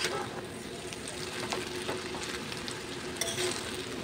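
Chowmein noodles sizzling in hot oil in a kadai, stirred with a metal spatula that clicks and scrapes against the pan a few times, most sharply a little after three seconds in.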